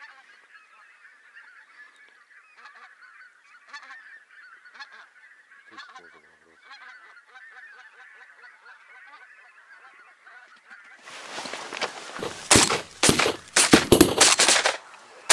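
Geese honking: a flock calling faintly far off, then much louder, close honking over the last four seconds or so.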